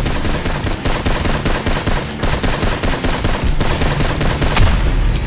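Rapid automatic gunfire sound effects in sustained bursts, with a brief break about two seconds in.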